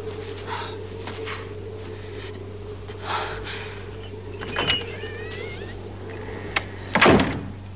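A door being worked: soft scuffs and rustles, a short squeaky creak about five seconds in, a click, then a louder thud of the door shutting near the end, over a steady low hum.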